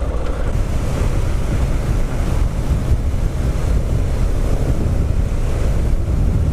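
Heavy wind buffeting on a helmet-mounted camera microphone while riding a KTM 690 supermoto at road speed. The bike's single-cylinder engine runs steadily underneath the wind rush.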